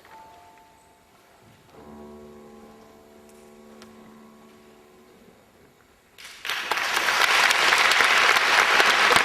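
The song's last chord is held and fades away. About six seconds in, an audience breaks into loud applause.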